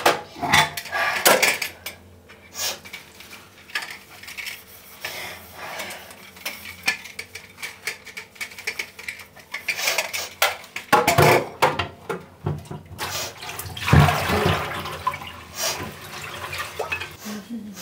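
Dishes being washed by hand at a kitchen sink: many sharp clinks and knocks of crockery and utensils, with tap water running, heaviest about two-thirds of the way through.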